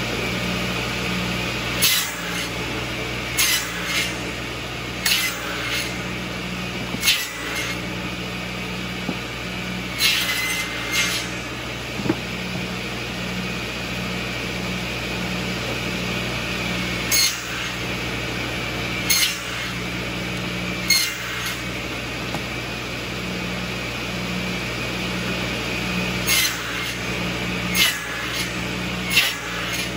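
Balfour Samurai 700 buzz saw running steadily while firewood sticks are fed through it to be cut into smoker chunks: about a dozen short, loud cuts, in clusters a second or two apart, each briefly pulling down the blade's note.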